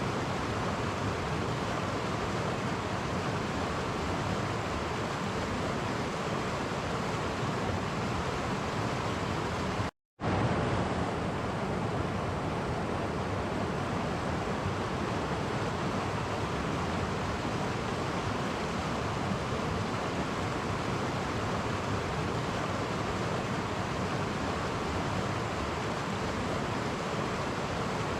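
Steady rushing of a clear stream running over small cascades. About ten seconds in it cuts to silence for an instant and comes straight back, like an edit splice.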